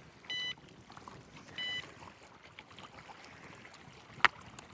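Two short electronic beeps about a second and a half apart, then one sharp click near the end, over faint outdoor background noise.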